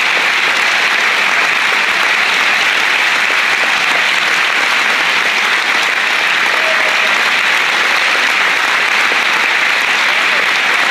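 A large theatre audience applauding: loud, steady clapping that carries on without a break.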